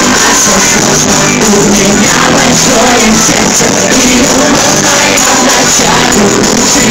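Live pop concert music played loud and steady through an arena sound system, with singing over the band.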